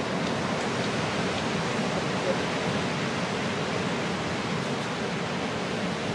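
Ocean surf breaking and washing in a steady, even roar, with no single crash standing out.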